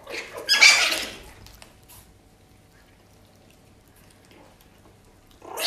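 A litter of small puppies feeding together from one metal bowl: a short burst of squeaky, scuffling noise about half a second in, quieter faint sounds after it, and another burst near the end.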